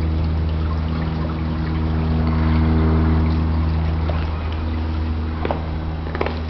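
A steady low hum over an even hiss, with a few faint clicks near the end.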